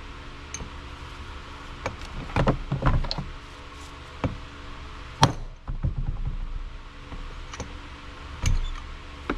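Irregular metal-on-metal taps and knocks, about a dozen, the hardest about five seconds in: a hammer driving a bearing race into a 1959 Ford F-100 wheel hub.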